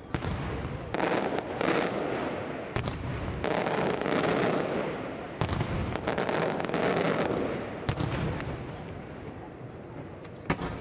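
Aerial fireworks shells bursting: sharp bangs, several in quick succession, between longer stretches of dense crackle.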